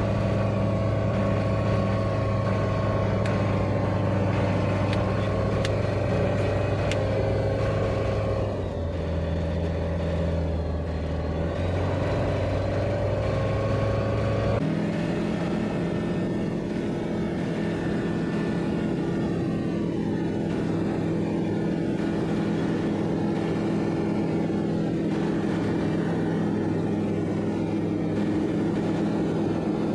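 Single propeller engine of a light aircraft running steadily on the ground after start-up, heard from inside the cockpit. Its note shifts about eight seconds in and changes again abruptly about fifteen seconds in.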